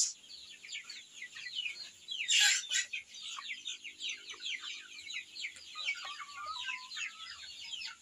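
A flock of young chickens calling in their pen: many short, high, falling peeps overlap throughout, with one louder outburst about two and a half seconds in.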